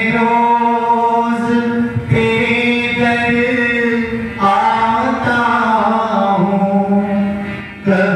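A male voice sings a devotional Hindi bhajan, holding long drawn-out notes over a steady musical accompaniment, with short breaks between phrases.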